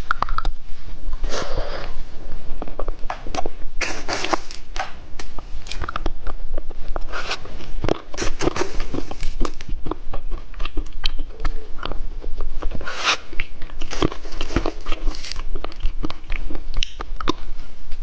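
A hard rainbow lollipop being bitten and crunched close to the microphone: irregular sharp cracks and crunches, dense throughout, with some longer rustling bursts.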